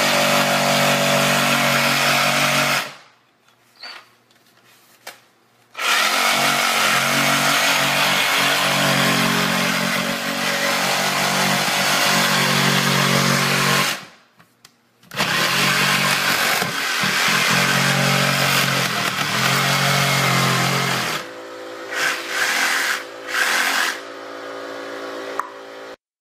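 Reciprocating saw with a drywall-cutting blade running and cutting through drywall. It runs in three long stretches, with two stops of a few seconds between them, then runs more quietly in short spurts near the end.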